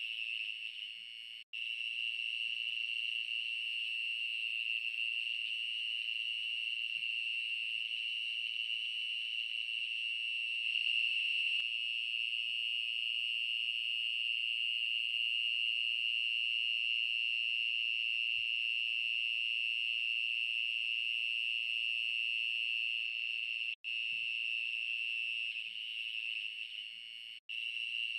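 Night insect chorus (crickets or cicadas) keeping up a steady high-pitched drone, broken by three very short gaps.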